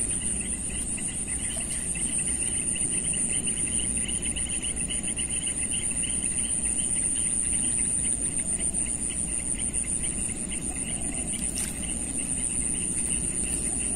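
A steady chorus of insects, a high continuous trill over a lower, rapidly pulsing chirp, with a low rumble underneath.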